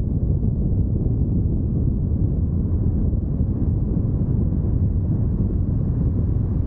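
Wind buffeting a camera microphone mounted on the roof of a moving car, giving a steady low rumble with road noise from the car underneath it.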